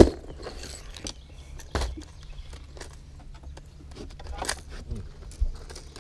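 Hard plastic tackle boxes and lures clicking and rattling as hands rummage through a boat's storage compartment: a sharp click right at the start, then scattered light clicks and knocks over a low steady rumble.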